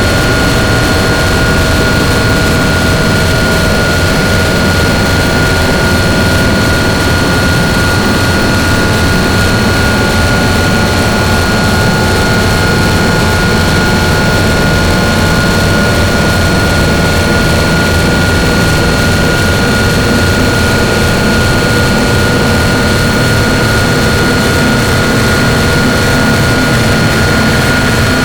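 Harsh noise drone: a loud, unchanging wall of distorted electronic noise from synthesizers run through distortion pedals, with a few steady high whining tones held on top.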